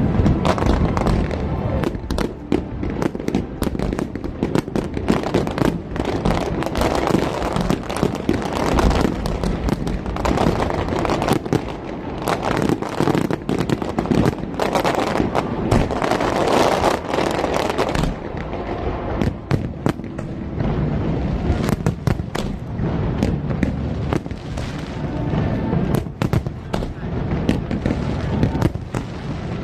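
Fireworks going off in a dense, continuous barrage: many sharp bangs and crackles overlapping with hardly a pause.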